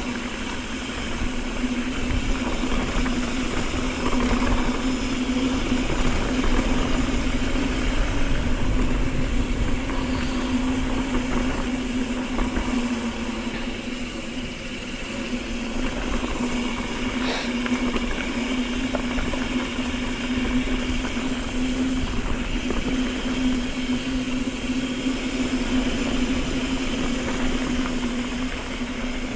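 Mountain bike rolling along a dirt fire road: a steady hum from the moving bike over heavy wind rumble on the helmet or handlebar camera's microphone.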